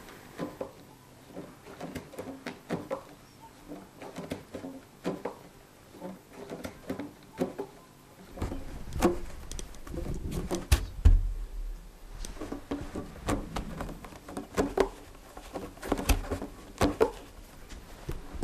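Irregular soft clicks and taps of hand-knotting a carpet on an upright loom, hands working yarn against the taut warp threads. A low rumble comes in about halfway, with a louder knock soon after.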